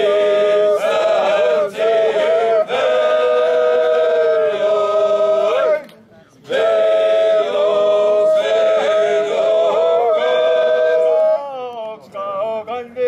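Male Seto leelo choir singing a cappella in traditional polyphony, holding long sustained chords. The voices break off briefly for breath about halfway through, then resume; near the end they glide down in pitch and the singing drops to a quieter, more broken line.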